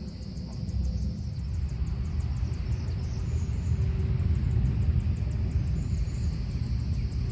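Outdoor ambience by a pond: a steady low rumble with a faint, rapid insect ticking high above it.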